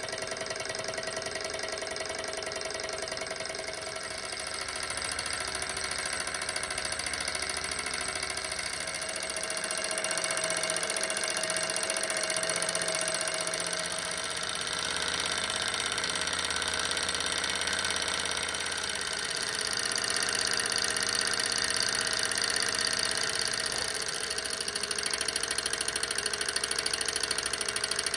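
Small SunnyTech hot-air Stirling engine running at speed: a steady, rapid mechanical clatter from its pistons, linkage and flywheel, which grows a little louder partway through.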